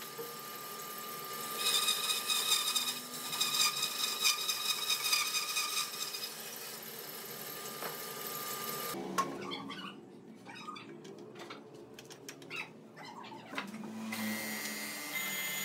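A woodworking power tool running with a steady whine, stopping abruptly about nine seconds in. Scattered clicks and knocks follow, then another machine hum starts near the end.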